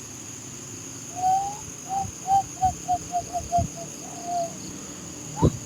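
A string of short whistled notes at one pitch: a rising note, then a quick run of short notes, a longer held note, and a rising note near the end. Under it runs a steady high drone like night insects.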